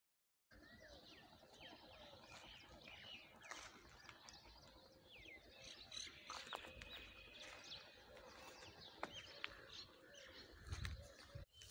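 Faint birdsong: scattered short chirps and whistles from several small birds over quiet open-air ambience, with a brief low rumble near the end.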